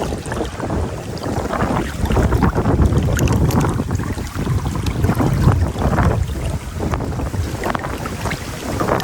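Wind buffeting the microphone over the rush of river water, the low rumble of the wind gusting louder about two seconds in and easing off near the end.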